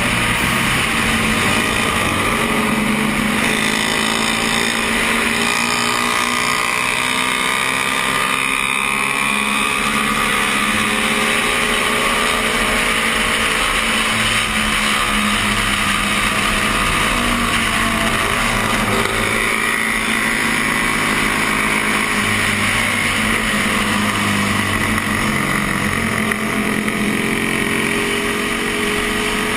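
1972 Honda CB350's air-cooled parallel-twin engine running hard at racing speed, with wind rush, its pitch rising and falling through shifts and corners. Near the start, under full throttle around 8,000 rpm, the engine stalls and will not rev higher, a fault the rider is investigating as a cam or timing problem.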